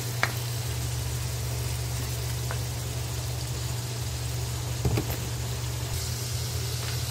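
Diced raw chicken sizzling in hot oil in a wok, over a steady low hum, with a few light taps of the spatula against the wok.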